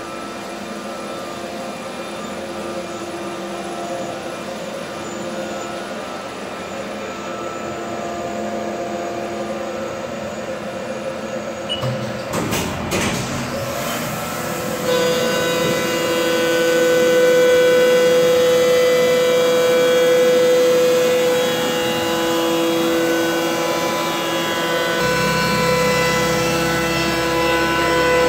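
Haas DM2 CNC vertical mill machining metal under flood coolant: a steady spindle-and-cutter whine with several fixed tones over the coolant spray. About halfway through, after a few brief knocks, a strong steady cutting tone sets in and the machine gets louder, and a low rumble joins near the end.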